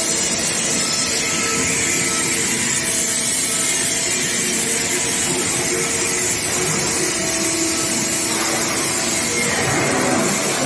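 Steady machinery noise from an oil-casing induction quenching and tempering line: a continuous hiss with several faint steady tones under it.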